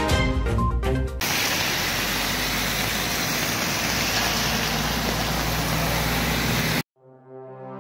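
Background music, giving way about a second in to a steady rushing noise that cuts off abruptly near the end; music then fades back in.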